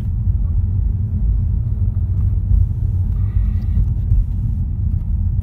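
Steady low road rumble from the tyres inside the cabin of a 2015 Ford Mustang EcoBoost driving on rough, cracked asphalt. The owner suspects a bad wheel bearing, but on this poor road surface he takes the excessive road noise for probably normal.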